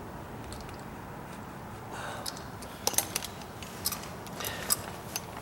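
A blade scoring and cutting into the wood of a door edge: a series of short, irregular scrapes and sharp clicks. They start about two seconds in.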